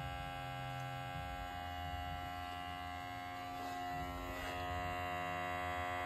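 Smoke machine's small air pump running with a steady electric hum as it pushes smoke into the engine during a smoke test for a vacuum leak, with a few faint handling sounds about halfway.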